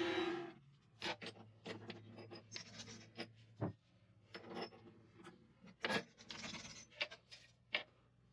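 A mini lathe's motor running stops about half a second in. Then come irregular clicks, taps and scraping from metal parts and tools being handled on the lathe.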